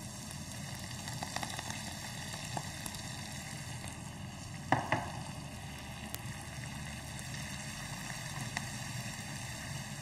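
Fresh tarragon sizzling steadily as it fries in a nonstick pan. Two sharp knocks sound near the middle.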